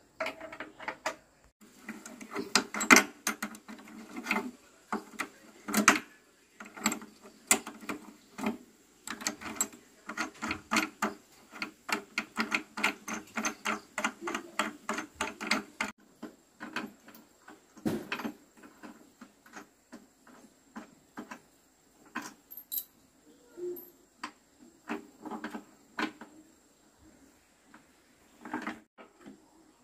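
Irregular metallic clicks and taps of hand tools and bolts on an electric motor's mounting in a wooden frame, as the motor is fastened in. The clicks come thick and fast for the first half, then thin out to scattered taps.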